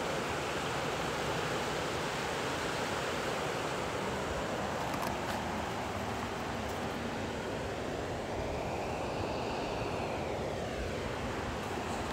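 Steady rush of the Yuba River running high after floods, an even wash of flowing water.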